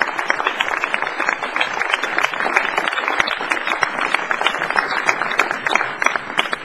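Audience applauding: a dense, steady patter of many hands clapping that eases off near the end.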